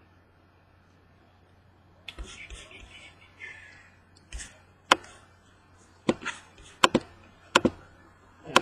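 Rustling from something being handled, followed by a series of sharp, separate clicks and taps at an irregular pace, over a faint steady low hum.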